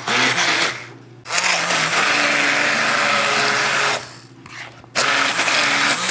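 Handheld immersion blender motor running as it purées thick broccoli pesto toward a fine paste. It is switched off twice for a moment, about a second in and around four seconds in, then starts again each time.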